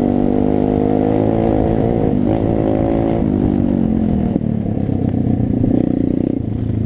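Pit bike engine running hard while riding over a dirt trail. The revs shift a couple of seconds in and briefly drop about four seconds in, then pick up again.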